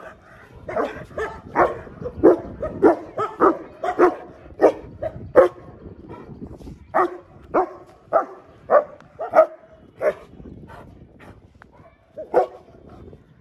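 German shepherd barking over and over, about one bark every half second, with a short break around the middle before the barking starts again.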